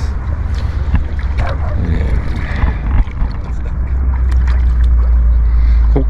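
Wind buffeting the microphone: a loud low rumble, strongest near the end, with faint distant voices of people in the river.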